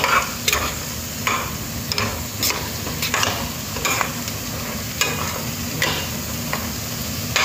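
Cooked rice being stirred and scraped around a pan with a spatula over a steady sizzle, with a scraping stroke about every second.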